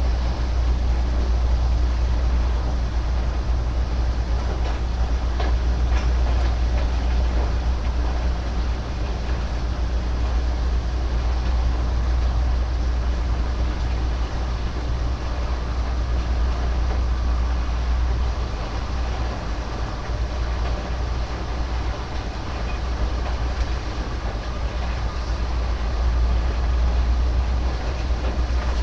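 Steady, loud mechanical rumble with a deep low hum and no clear rhythm or individual strokes.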